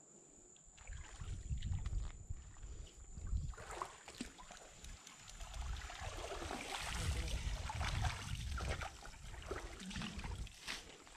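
Shrimping cast net being hauled out of the water onto rocks, with water splashing and trickling off the mesh and small knocks of handling, starting about a second in. Heavy low rumble on the microphone runs under it.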